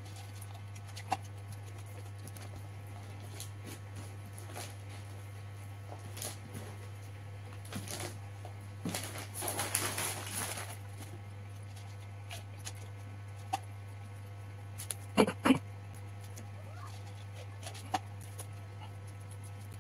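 Small clicks of hand-eating and chewing, then, about nine seconds in, a couple of seconds of crinkling as the paper food wrapper is folded closed. About fifteen seconds in there are two sharp knocks, the loudest sounds. A steady low electrical hum runs underneath.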